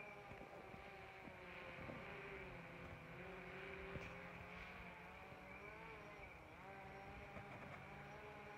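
DJI Phantom 4 Pro quadcopter's propellers heard faintly from far below, a buzzing whine whose pitch wavers up and down as the motors change speed to hold and steer the drone.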